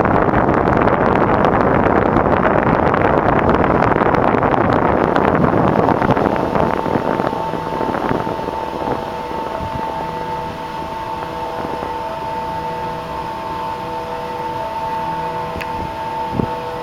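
Wind rushing over the microphone, dropping off about six seconds in. What is left is a steady hum made of several held tones.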